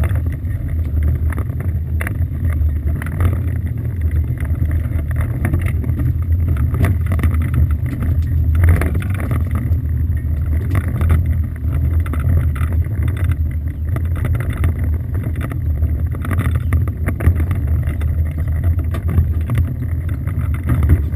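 Small motorboat's engine idling, a steady low hum, with water washing against the hull and a few light knocks.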